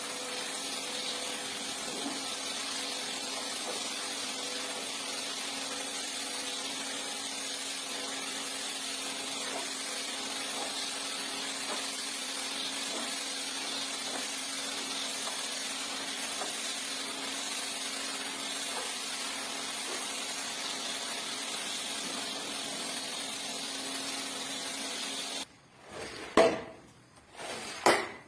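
A rug-cleaning machine running steadily with a hiss and a low hum, cutting off suddenly near the end, followed by a couple of sharp knocks.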